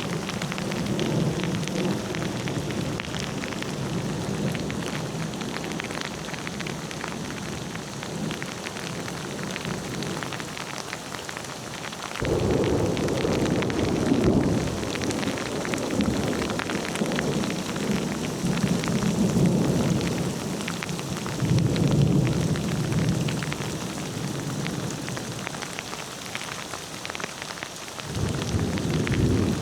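Steady rain falling with thunder rumbling low underneath, swelling and fading. The rumble grows suddenly louder about twelve seconds in and again near the end.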